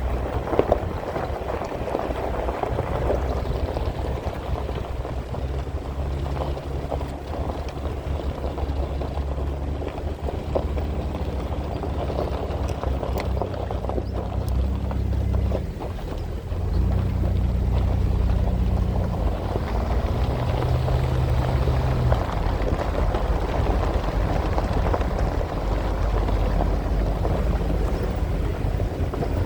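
Off-road vehicle's engine working at low speed over rough ground, its note stepping up and down in pitch several times over a steady noisy rumble, dipping briefly about midway.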